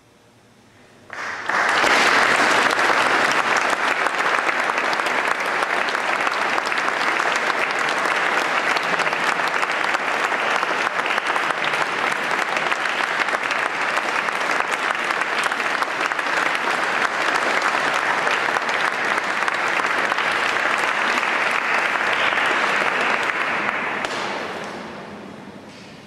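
Audience applauding: clapping breaks out suddenly about a second in, holds steady, and dies away near the end.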